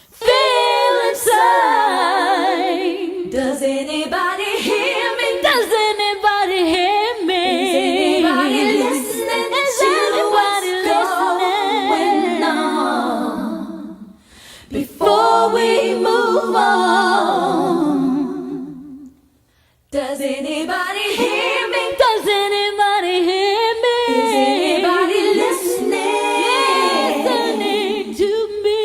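Female vocal trio singing a cappella in close harmony, with no instruments. The singing dips briefly about fourteen seconds in and stops for about a second around nineteen seconds in before resuming.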